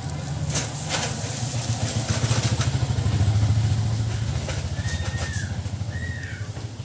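A vehicle engine passing by, a low pulsing hum that grows louder toward the middle and then fades. Two short high calls come near the end.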